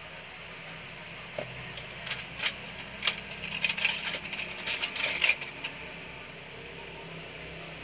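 Small hard objects being handled on a counter: a flurry of quick, light clicks and clinks starting about a second and a half in and stopping at about six seconds, over a faint steady low hum.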